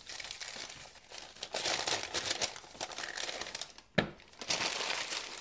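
Brown paper packaging crinkling and rustling as it is handled, with one sharp tap about four seconds in.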